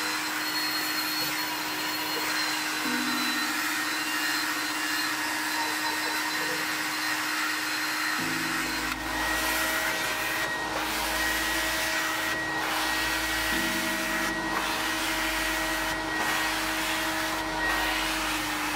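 Carpet extractor's vacuum motor running steadily. For the first several seconds a cordless drill brush scrubs the carpet. About eight seconds in the extractor wand goes onto the wet carpet, adding a low rumble and a hiss that dips about every two seconds as the wand is drawn across in strokes.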